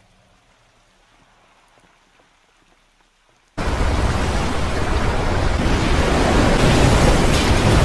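Very quiet for about three and a half seconds, then a sudden loud, steady rush of a torrent of water crashing down.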